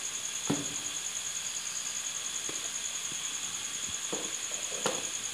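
Spice paste frying gently in a wok: a steady low hiss with a few faint pops, over a constant high-pitched whine.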